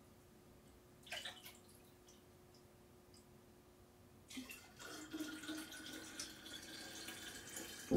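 Grape must poured from a glass bowl into a glass jar: a faint, continuous stream of liquid running and splashing into the jar from about four seconds in. A brief splash comes about a second in.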